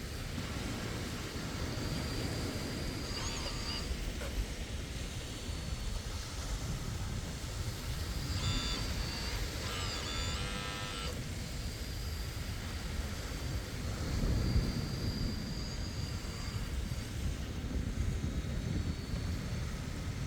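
Kabolite K961 100S mini excavator running, a steady low engine rumble, with brief higher-pitched whines near the middle.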